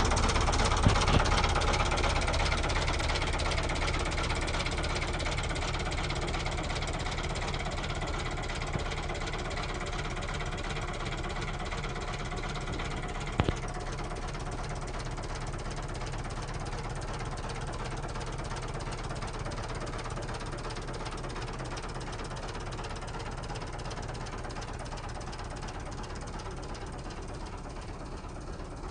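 Fiat 480 tractor's three-cylinder diesel engine running steadily as the tractor drives along, slowly growing fainter. One short sharp knock about halfway through.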